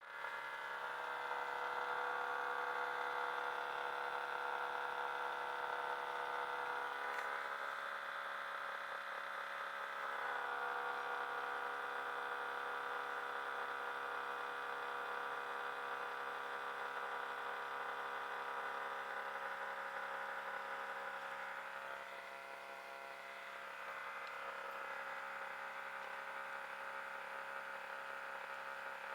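Hitachi 25 RPD/WPD split air conditioner running with a loud, steady whirring whine made of several held pitches, which shift slightly a few times. This is the unwanted loud noise the unit is making.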